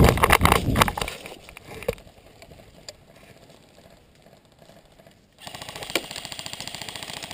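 Heavy rustling and thudding movement noise for about the first second. After a quieter stretch, an airsoft electric gun fires one long full-auto burst from about five and a half seconds in: a rapid, steady rattle of shots.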